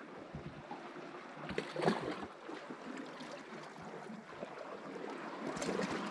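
Seawater lapping and washing against the rocks at the water's edge, with some wind on the microphone. A brief louder burst of noise comes about two seconds in.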